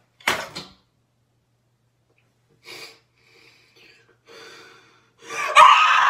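A person's voice: a short, sharp gasp about a third of a second in, a few faint breathy sounds, then a loud, high-pitched vocal sound starting about five and a half seconds in.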